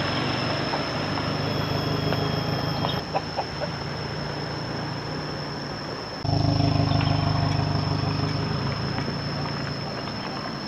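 Toyota Innova MPV's engine running with a steady low hum, louder from about six seconds in. A steady high-pitched insect drone runs underneath.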